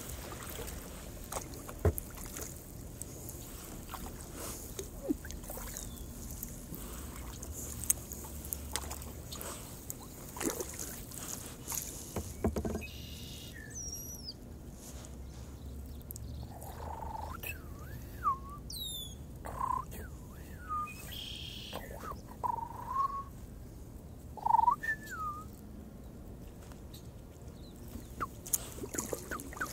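Kayak paddling: water trickling and dripping off the paddle, with small knocks and clicks of the paddle. Through the middle stretch, birds give a series of short calls, some sweeping down in pitch.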